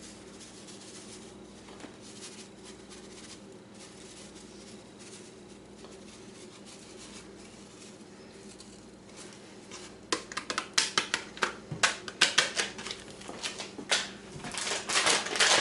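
A low steady hum, then from about ten seconds in a run of sharp, irregular crinkles and clicks from a seasoning-mix packet being handled and opened.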